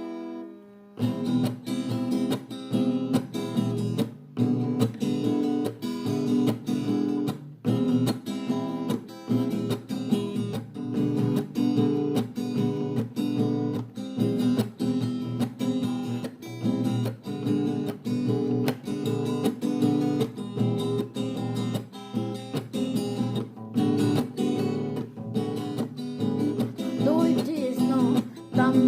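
Acoustic guitar strumming chords in a steady rhythm, starting about a second in: a song's instrumental opening.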